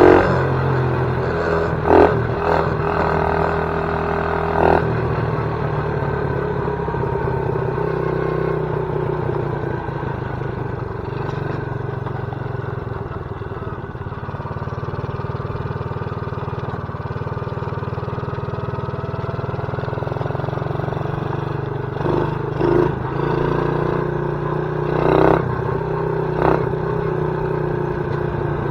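ATV engine running steadily, with a few sharp clanks along the way.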